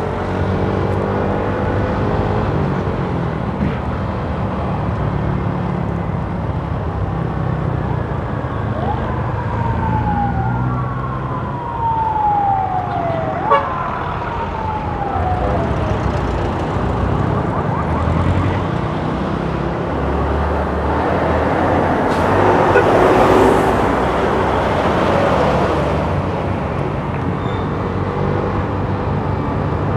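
Small motorcycle engine running while riding through busy city traffic. Roughly a third of the way in, a siren sounds for several seconds with repeated falling wails, and near three-quarters through a louder rush of noise passes.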